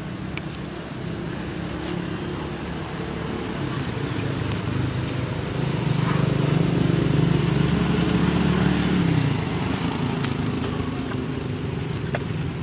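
A motor vehicle's engine running steadily nearby, growing louder to a peak about halfway through, then fading away as it passes.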